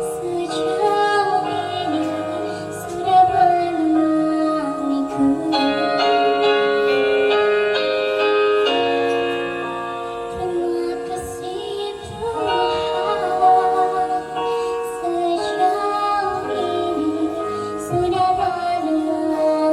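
A woman singing a song with musical accompaniment, her voice holding long notes.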